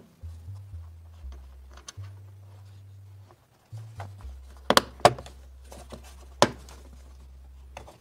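Background music with a low bass line, over a few sharp clicks and knocks of a plastic engine-bay cover being handled and pressed into place; the three loudest clicks come a little past the middle.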